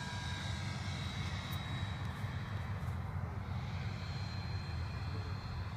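Freewing 90 mm electric ducted fan F-16 model jet flying at a distance: a faint high whine over a steady low rumble.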